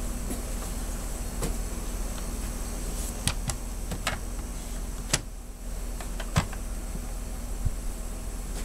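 Handling in the car's rear cargo area: about six short clicks and knocks, the sharpest about five and six and a half seconds in, over a steady low hum.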